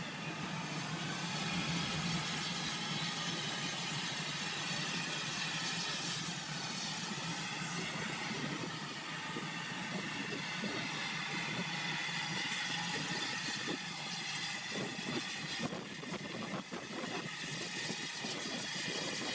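Steam locomotive standing with steam hissing steadily over a low hum, and a few light knocks in the last few seconds.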